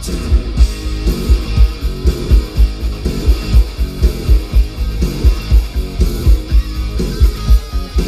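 Rock music with guitar and a fast, heavy bass beat, played loud through a car stereo and heard inside the car's cabin. The low end comes from a Rockford Fosgate T1S1-12 12-inch subwoofer in a strengthened box.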